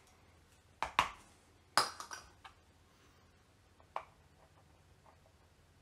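Small 3D-printed plastic parts clicking and tapping together as a little printed piece is fitted into a hole in a printed disc and pressed home. A handful of sharp clicks fall in the first two and a half seconds, the loudest near two seconds, with one more at about four seconds.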